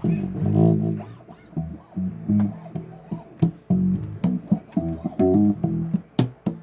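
Bass guitar played alone: a riff of low plucked notes with sharp, clicky attacks, about two or three notes a second at an uneven rhythm.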